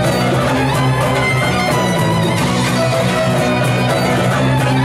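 Large folk ensemble playing a tune live, fiddles to the fore with brass instruments among them; loud and steady throughout.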